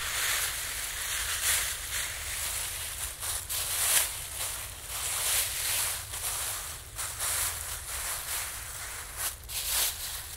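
Thin clear plastic groundsheet crinkling and rustling in irregular bursts as it is unfolded and spread out by hand on grass.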